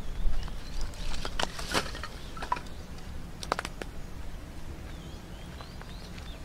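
Dry sticks of firewood knocking and clattering as an armful is set down on the ground, in two clusters of sharp knocks, about one and a half seconds in and again near three and a half seconds. Faint high chirps sound in the background.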